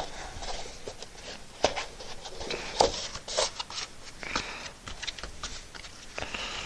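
Short hisses of an air blow gun clearing debris from freshly routed Kaizen foam cutouts, among irregular taps and rustles of handling.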